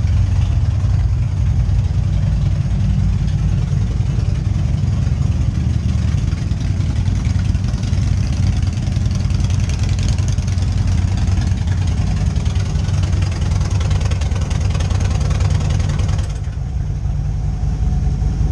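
Motorcycle engine idling steadily and loudly with a deep exhaust note. A couple of seconds before the end, the higher hiss falls away while the engine keeps running.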